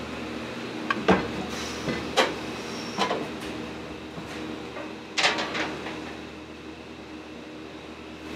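Kitchen work: about five sharp knocks and clatters, the loudest about a second in and about five seconds in, over the steady hum of a ventilation fan.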